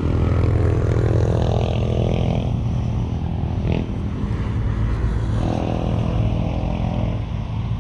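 Road traffic: the low engine hum of passing vehicles, swelling twice as they go by.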